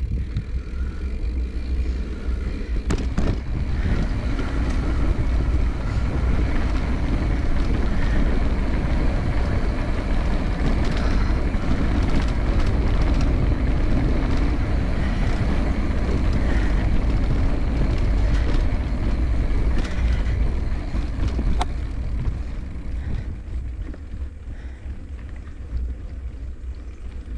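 Wind buffeting the microphone and the rumble of a bike rolling along a concrete track. It grows louder a few seconds in and eases off near the end, with one sharp click about two-thirds of the way through.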